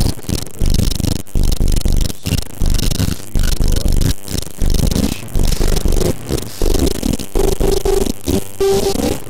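Dissonant experimental noise soundtrack: harsh, rattling pulses of noise, each starting suddenly and dying away, about every three-quarters of a second, with a held buzzing tone joining near the end.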